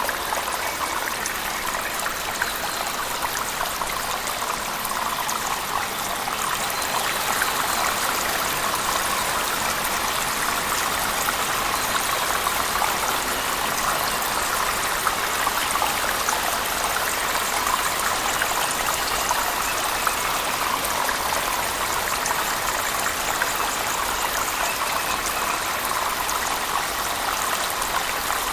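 Steady rushing and splashing of falling water, a waterfall mixed with heavy rain, unchanging throughout.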